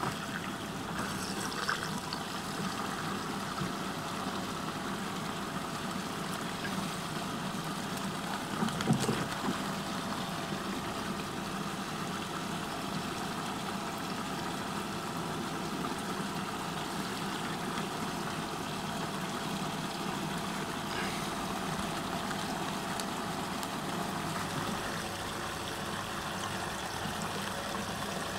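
Water swirling and rushing steadily down a whirlpool's drain hole, with a steady hum under it. A brief thump about nine seconds in.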